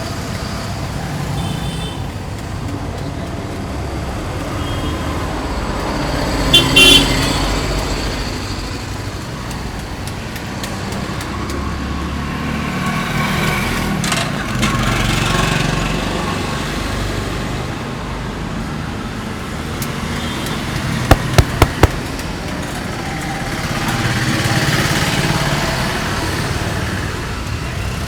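Steady street traffic noise, with a short vehicle horn toot about a quarter of the way in. Past the middle come four sharp clicks in quick succession, the loudest sounds of all.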